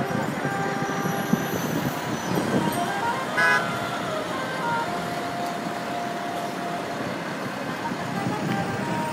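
Busy city street traffic running steadily, with car horns sounding over it, including a short louder toot about three and a half seconds in and a longer held horn note a little later.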